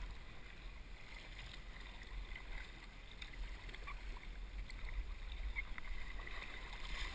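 River water rushing and lapping around kayak hulls in a fast current, with a few light paddle splashes.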